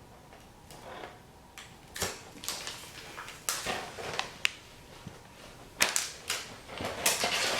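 Fishing lures in their plastic packaging being handled: irregular clicks and crinkles, busiest about six to seven seconds in.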